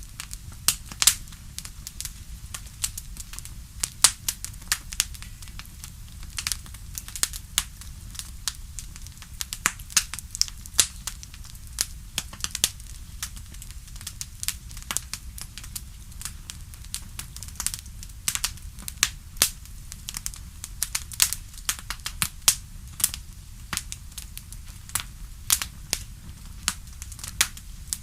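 Crackling wood fire: irregular sharp pops and snaps, several a second, over a steady low rumble.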